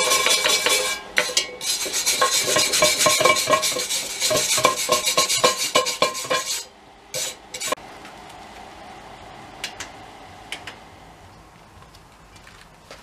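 Cast iron Dutch oven being scrubbed inside to clean off rust: fast, continuous metallic scraping and rattling with the iron pot ringing. It stops about six and a half seconds in, followed by a few metal clinks and then only faint light clicks.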